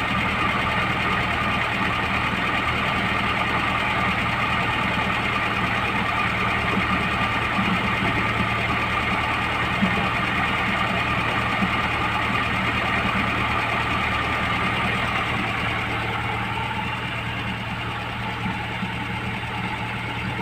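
VAZ 2107 running steadily with its drivetrain humming, with a few brief knocks near the middle: knock and noise from the rear axle's differential (final drive), which the owner traces there, the half-shafts having no play.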